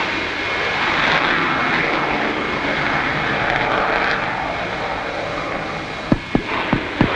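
Steady jet noise of an RF-4E Phantom in flight, with a thin high whine running over it. A few short knocks come near the end.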